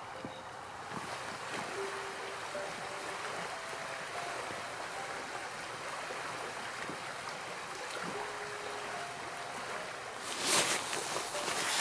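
Steady rush of running water. About ten seconds in, loud footsteps squelch through wet mud on a trail.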